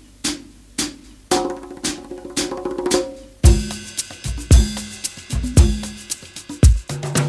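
Background music with a drum beat: sparse sharp hits at first, then tones enter and a full drum kit with a deep kick drum comes in about halfway through.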